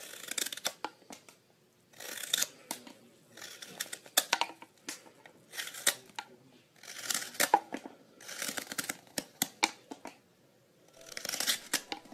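Hook knife shaving pale wood: about eight short scraping cuts, one every second or two, each a dry rasp of steel paring wood, with quiet gaps between strokes.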